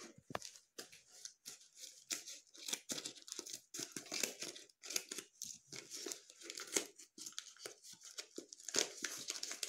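Plastic courier packet being cut with scissors and torn open by hand, the plastic crinkling and rustling in irregular strokes.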